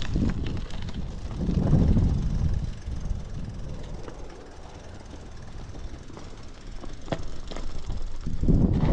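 Wind buffeting the microphone: a low rumble that swells about two seconds in, eases off through the middle and builds again near the end, with a couple of sharp ticks about seven seconds in.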